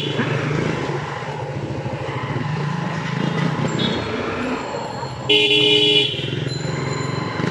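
Motorcycle engines running steadily at riding speed. About five seconds in, a vehicle horn honks loudly for under a second.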